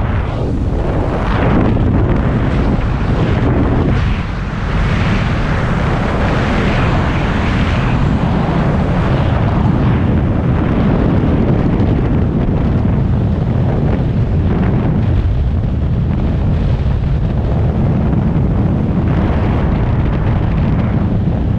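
Free-fall wind rushing and buffeting over a skydiver's camera microphone, a steady loud noise.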